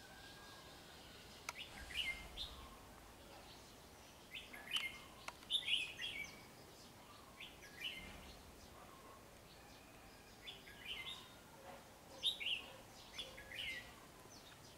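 Red-whiskered bulbul singing short, quick phrases of two or three notes in repeated bursts a second or two apart, the phrases coming evenly.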